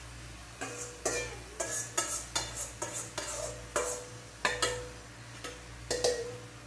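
Metal spoon scraping and knocking inside a stainless steel mixing bowl, a quick irregular run of about fifteen clinks, the bowl ringing after several of them, as marinated pork is scraped out into a wok.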